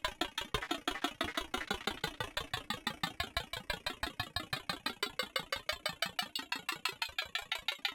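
A rapid, even pulsing sound effect, about eight pulses a second, with a machine-like, engine-idle character.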